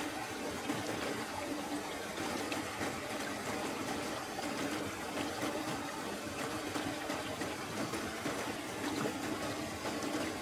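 River water flowing and trickling over rocks at the bank, a steady rushing sound.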